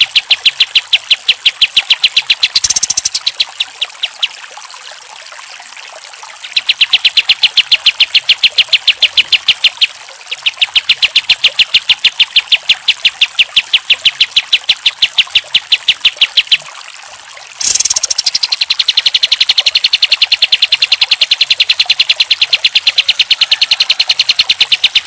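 Kapas tembak, a bulbul, singing its rapid-fire song: long trains of sharp, evenly repeated notes, about ten a second, broken by a few short pauses.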